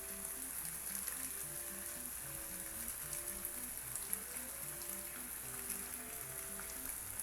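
Red onions frying in a hot pan with chicken, a steady crackling sizzle, under soft background music with a slow melody.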